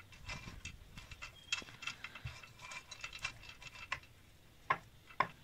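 Wooden spatula stirring sautéed dates and roasted peanuts in a glass baking dish: irregular light clicks and taps of the spatula and nuts against the glass, the two sharpest near the end.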